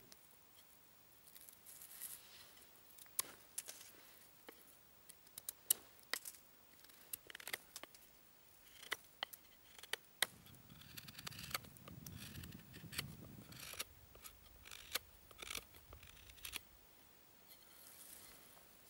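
Knife carving a wooden stick by hand: a series of short, sharp cuts and scrapes of the blade through the wood, irregularly spaced.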